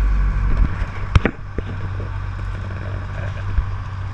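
Motorboat engine droning steadily, with a sharp click about a second in.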